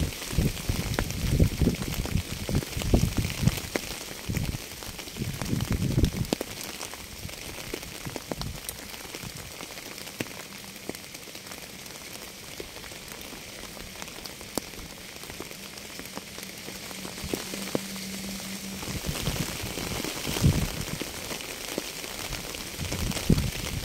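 Rain falling on a surface: a steady hiss with scattered drop ticks. Low thumps come and go in the first six seconds and again near the end, and a faint low hum sits under the rain in between.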